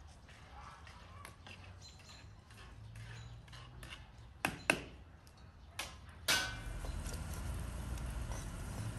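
A ladle knocking and clinking now and then against a large metal pot as quince slices are stirred. About six seconds in, a sharp knock, then the steady bubbling of the syrup simmering in the pot.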